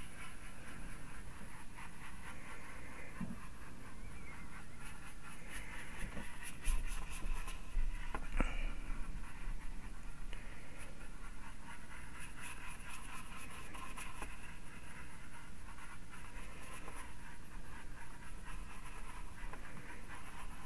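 A round makeup-style mop brush dabbing and scrubbing acrylic paint onto hardboard: a steady scratchy rustle broken by many light taps.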